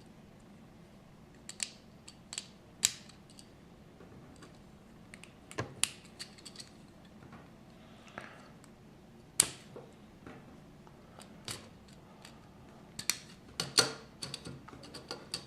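LEGO plastic bricks being handled and pressed together: scattered sharp clicks and small rattles at irregular intervals, with a quick run of clicks near the end.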